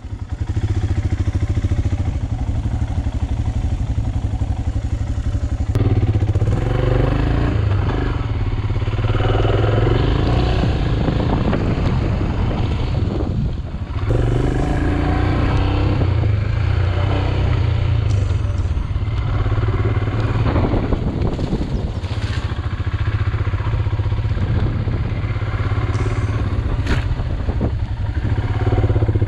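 Royal Enfield Himalayan's single-cylinder engine running steadily at low revs, with a brief dip in the engine sound about halfway through.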